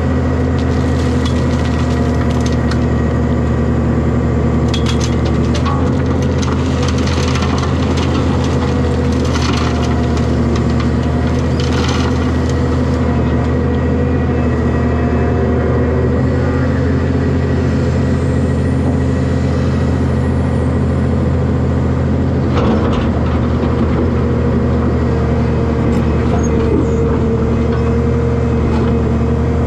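Excavator diesel engine running steadily under hydraulic work as the bucket dumps dirt and rocks into a steel dump trailer, with clattering and crackling over roughly the first dozen seconds. A single heavy knock comes about two-thirds of the way through as the bucket comes down into the dirt pile.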